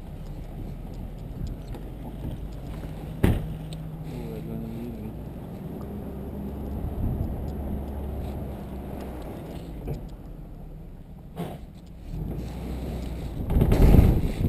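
Vehicle running along a road: a steady low engine hum with wind on the microphone, and two sharp knocks, one about three seconds in and one about eleven seconds in. Near the end, loud rubbing and rustling of the packed nylon paraglider bag against the microphone.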